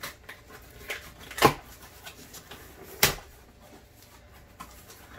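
Cardboard shipping box being handled and worked open by hand: a few light scrapes and knocks, with two sharp knocks about a second and a half apart.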